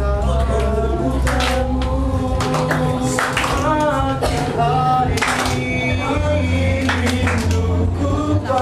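Male vocal group singing a song live, several voices together over a steady low bass, with sharp percussive hits.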